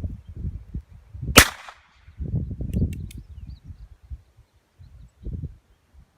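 A single shot from a Heritage Rough Rider .22 rimfire single-action revolver, a sharp crack about a second and a half in with a short echo.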